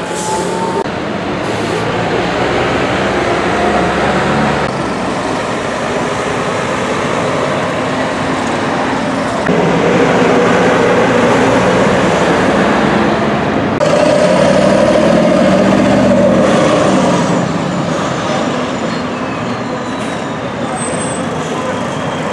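Heavy diesel articulated trucks hauling shipping containers pass close by in steady traffic, their engines pulling under load amid tyre and road noise. The sound swells twice, about ten and fourteen seconds in, as the larger rigs go past, then eases off.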